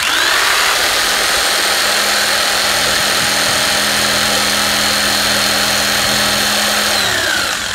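King Canada electric jigsaw starting abruptly and running steadily at full speed, its blade cutting a sheet of plexiglass. The motor pitch falls and winds down about seven seconds in as it is switched off.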